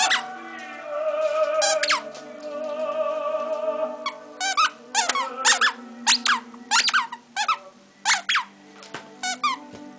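Plush monkey squeaky toy squeaking again and again as a beagle chews and bites it, the squeaks coming fast and often in pairs from about four seconds in. Opera singing with orchestra plays in the background.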